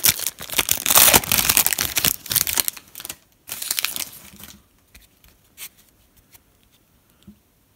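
Foil wrapper of a Panini Prizm football card pack crinkling and tearing as it is ripped open, loud for about three seconds, with a shorter rustle about four seconds in. After that come a few faint clicks as the stack of cards is handled.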